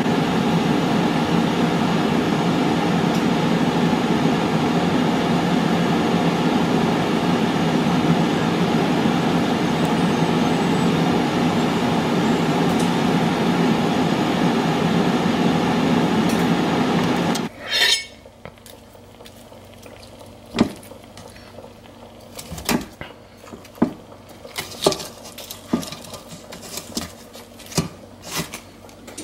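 Power XL air fryer's fan running steadily, then stopping abruptly a little over halfway through as the basket is pulled out. A metal fork then clicks and taps against the air fryer basket while turning the chicken pieces.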